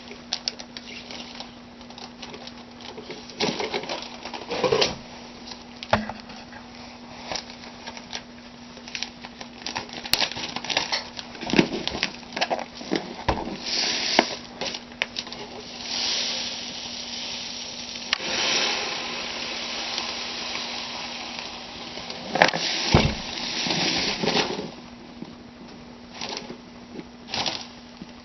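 Thin plastic bag rustling and crinkling, with small clicks and knocks, as lye is scooped into it and weighed; longer rustling stretches come in the second half. A steady low hum runs underneath.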